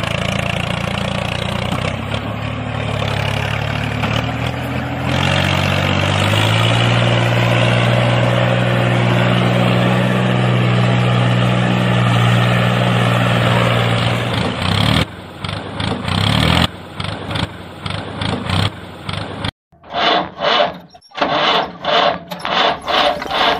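An engine running with a steady low hum, rising in pitch a few seconds in and holding there. In the last third it turns choppy and pulsing, with a brief dropout.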